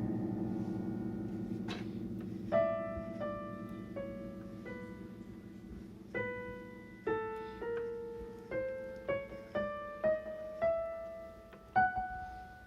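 Yamaha DGX-640 digital piano playing a piano voice: a low held chord slowly fades while a single-note melody of about a dozen notes is played over it. A brief click comes a couple of seconds in.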